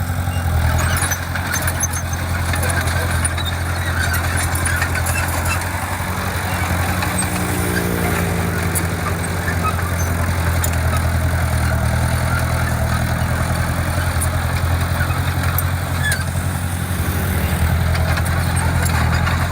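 Heavy construction equipment's diesel engine running steadily, its pitch shifting a little now and then.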